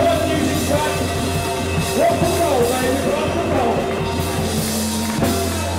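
Live rock 'n' roll band playing through a hall PA, with electric guitar and drums under a held low bass note and a gliding melody line.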